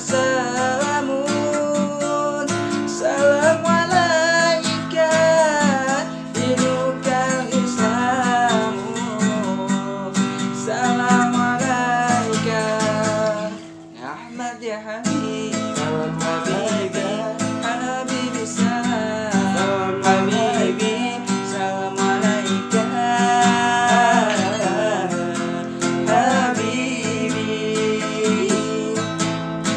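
A man singing an Arabic shalawat (Islamic devotional song) in a winding, ornamented style over a strummed acoustic guitar. Both drop away briefly about halfway through, then carry on.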